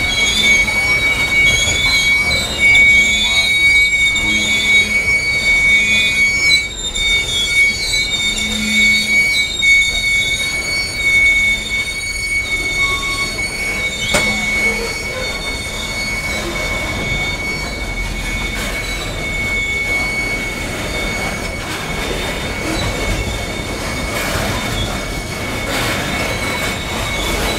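Coal hopper cars of a freight train rolling past, their steel wheels squealing on the rail: one steady high-pitched squeal with wavering higher squeals over the rumble of the cars. The wavering squeals fade about halfway through while the steady one carries on.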